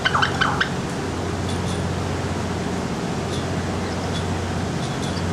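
A steady low mechanical hum, with a few short falling squealing calls in the first half second from the bald eagles squabbling there, and a few faint high chirps later.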